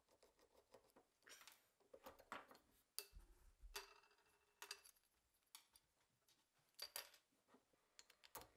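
Faint clicks and clinks of small steel revolver parts and screws being handled and set down on a wooden bench. One clink about three seconds in rings briefly.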